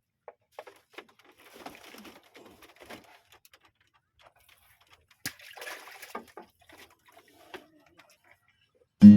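Scattered faint clicks, knocks and short rustling noises, with one sharper click about five seconds in. Acoustic guitar music starts just before the end.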